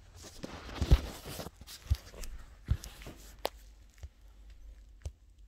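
A run of irregular knocks and clicks, about one a second, with a short rustle in the first second and a half.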